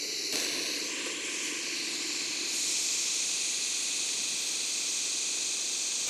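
Hot air rework station blowing a steady hiss of air at 40% airflow, heating a circuit board from underneath to melt the solder on a connector. The hiss grows a little louder about two and a half seconds in.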